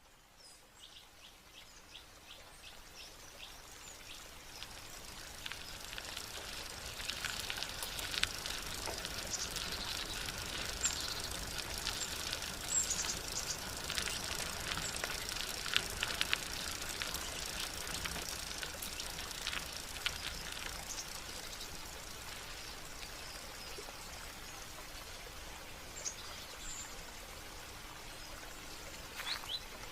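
Steady splashing, running water with small birds chirping now and then. It fades in over the first few seconds.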